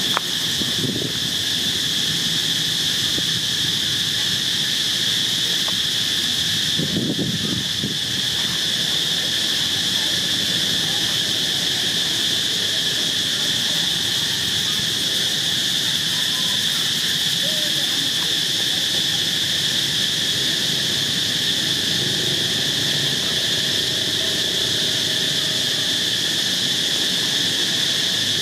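A steady chorus of insects: an even, high-pitched buzz that does not let up, with a weaker lower band beneath it. Under it runs a low murmur that swells briefly about seven seconds in.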